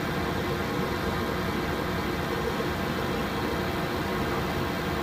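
Steady flight-deck noise inside an Airbus A320 cockpit: a constant rush of air with a low hum and a few faint steady tones, unchanging throughout.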